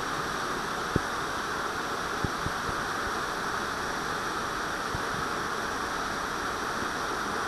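Steady rush of a mountain stream's waterfall pouring down a rocky cascade, with two light knocks in the first few seconds.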